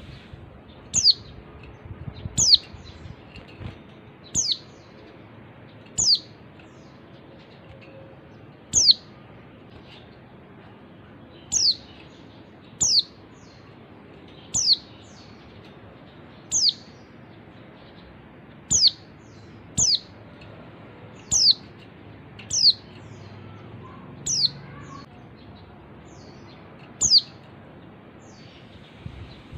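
White-eye (pleci) giving short, sharp calls, each a quick falling note, repeated every one to two seconds, about fifteen in all. It is labelled as a female's call, used as a lure recording to set males singing. A faint steady hiss lies underneath.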